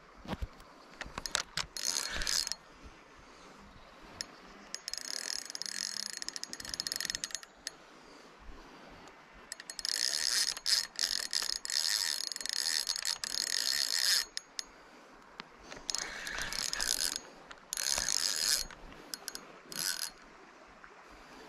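Fixed-spool spinning reel's drag clicking in a rapid buzz as a hooked salmon pulls line off, in runs of one to four seconds with short pauses between, the longest lasting about four seconds.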